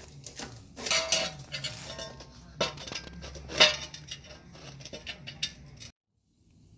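Metallic clanks and clinks of steel C-clamps and cut frame-rail pieces being handled and clamped together on concrete, the loudest, ringing clank a little past halfway. The sound cuts off abruptly near the end.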